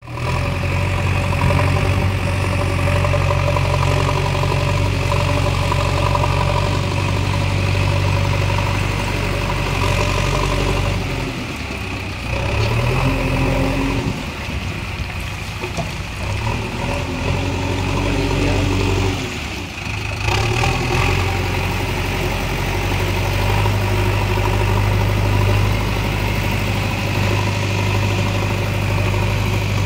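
JCB 3DX backhoe loader's diesel engine running steadily while the front loader works. The engine note drops and then climbs back up twice in the middle, as the revs fall and pick up again.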